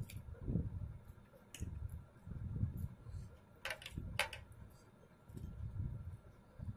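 Close-up eating sounds: a person chewing, with low, muffled pulses about once a second and two sharp clicks a little past halfway.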